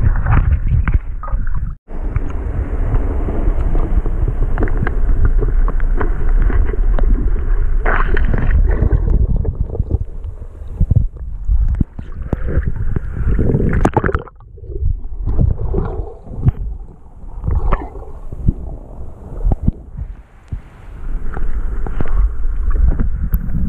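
Muffled water sloshing and gurgling around a camera held at and below the surface of a river pool, with a heavy low rumble. Steady at first, it breaks into irregular splashing surges about ten seconds in, then turns steady again near the end.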